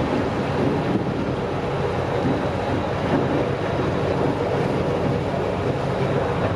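Vaporetto water bus underway: the steady drone of its engine mixed with water churning and rushing along the hull, and wind on the microphone.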